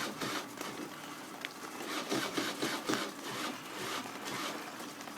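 Peugeot Speedfight 3 moped being cranked on its electric starter: a steady mechanical whirr with an uneven, pulsing rasp, and the engine does not catch.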